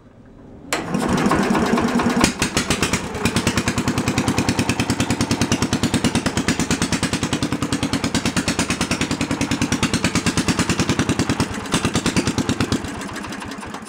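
Briggs & Stratton engine of a Simplicity garden tractor starting about a second in and running with an even, fast pulsing beat, then dying away near the end. The engine is running cold, its first start after a head gasket and spark plug repair.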